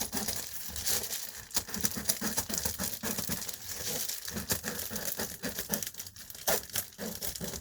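Reflectix foil-faced bubble insulation crinkling and crackling in irregular bursts as a strip of it is handled and worked.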